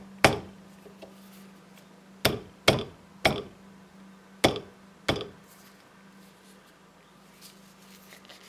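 Six sharp metal taps at uneven intervals, most of them in the first five seconds: a screwdriver blade knocking a small snap ring down the shaft of an electric motor armature toward its recess.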